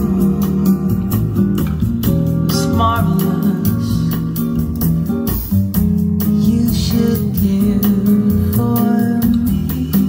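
Recorded music with guitar, bass and a singing voice, played back through Altec A7 horn loudspeakers and picked up in the room.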